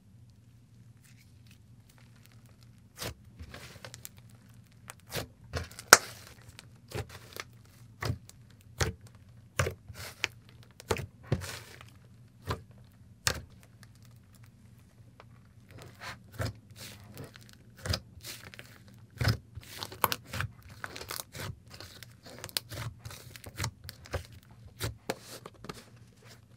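Thick, butter-textured clay slime being kneaded, pressed and stretched by hand, making irregular sticky pops, clicks and crackles. The sounds start about three seconds in and ease off briefly midway.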